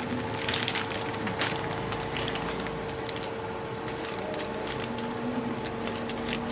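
Scattered light clicks and small handling knocks over a steady electrical hum.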